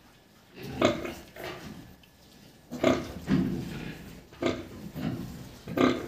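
Pigs grunting as a sow nurses her piglets: four short, louder calls come about every one and a half to two seconds, with softer grunting between them.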